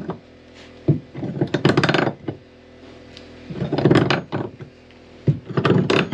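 Large pipe wrench turning an old skin-fitting valve on a boat's hull, giving metal clicks and grating in four short bursts.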